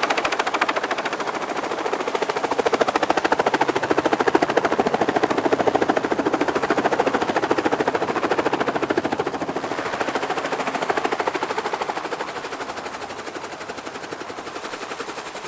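Small helicopter's rotor blades beating in a fast, loud thump close by as it comes back in. It is loudest a few seconds in and eases off toward the end.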